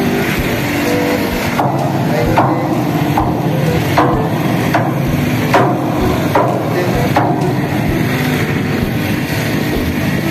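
Evenly spaced hammer blows on steel, a little under a second apart, each with a short ring, over a constant machinery drone with steady low tones.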